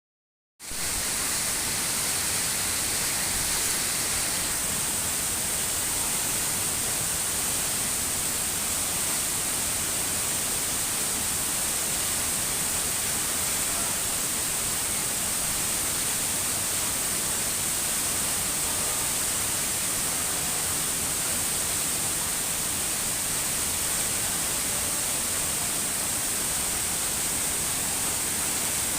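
Waterfall rushing: a steady, unbroken noise of falling water with a strong high hiss, cutting in abruptly about half a second in.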